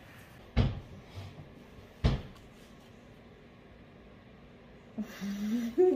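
Two sharp knocks about a second and a half apart as the recording phone is handled and set in place against the table. A person starts humming near the end.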